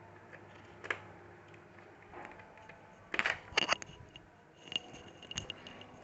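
Laptop parts being handled during reassembly: a few sharp plastic clicks and small rattles, loudest in a quick cluster a little past three seconds in.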